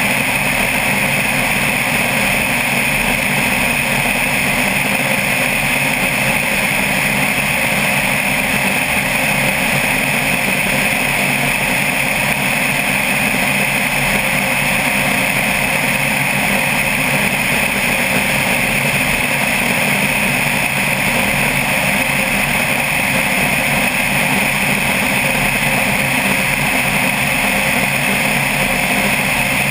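Single-engine floatplane's engine and propeller droning steadily in cruise, heard from outside the cabin with air rushing past.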